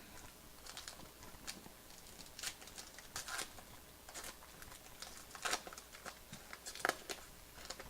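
Faint rustling and scraping of trading cards and their packaging being handled, in short scattered scuffs.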